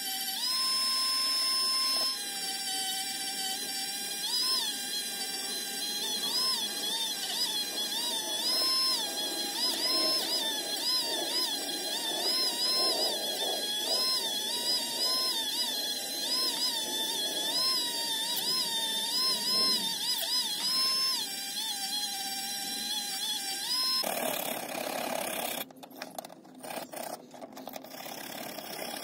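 Small handheld rotary tool running with a steady high whine that keeps dipping in pitch as its wire wheel bears on the bare die-cast metal body and then picking up again. Near the end this gives way to the quick scratchy strokes of a brass hand wire brush scrubbing metal.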